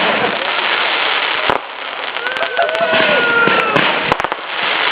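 Consumer 500-gram firework cake firing: a dense, continuous crackle with sharp bursting reports, one about one and a half seconds in and several in quick succession near the end.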